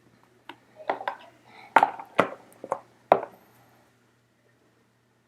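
Trading-card box and its contents being handled: a quick run of sharp clicks and knocks over about three seconds, then it goes quiet.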